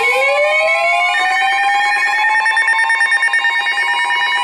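Electronic emergency alert attention tone, sounding ahead of a weather warning broadcast: several steady tones sound together under a siren-like wail that rises in pitch over the first few seconds and then levels off. Another tone joins about a second in.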